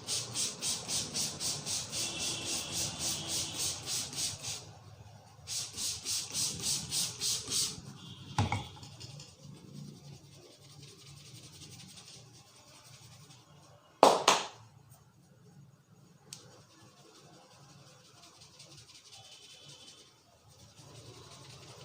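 Hands rubbing briskly through hair in a head massage, in fast even strokes about three a second, in two runs that stop about a third of the way in. Later comes one loud, sharp double smack.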